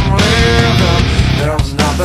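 Loud hard rock music, full band with a pitched melodic lead line over heavy bass and drums; no singing is heard.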